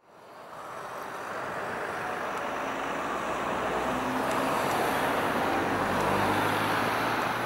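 Hawker Hurricane's Rolls-Royce Merlin V12 engine running in flight as the aircraft makes a display pass, fading in from silence and growing steadily louder.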